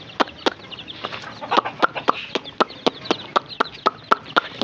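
Young chicks peeping, a steady run of short, sharp peeps about three a second.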